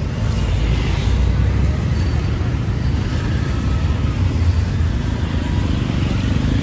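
Street traffic noise: a steady low rumble of passing motor vehicles, with faint voices in the background.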